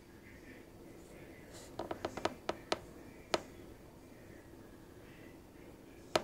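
A quick run of about seven sharp clicks or taps within a second and a half, then a single louder click near the end, over faint room noise.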